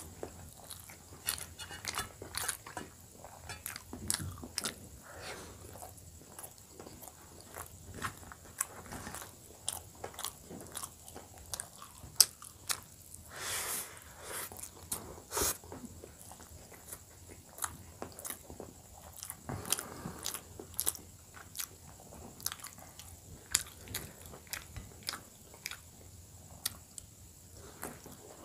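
Close-miked chewing and mouth sounds of a person eating steamed momos and Maggi noodles: wet smacking and irregular sharp clicks throughout, with one longer noisy sound about halfway through.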